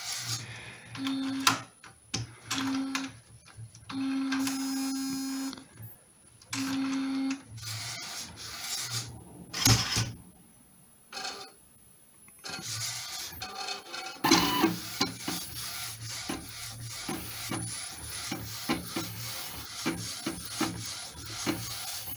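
DIY direct-to-garment printer built on an Epson 1500W, running a print. First come several short motor hums with clicks between them as the mechanism moves. From about two thirds of the way in there is a steady fast run of rasping ticks as the ink carriage shuttles back and forth printing.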